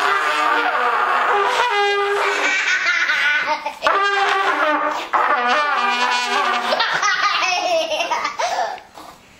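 Two young children blowing loud, buzzy, unsteady blasts on trumpets together for the first several seconds, then breaking into laughter that fades out near the end.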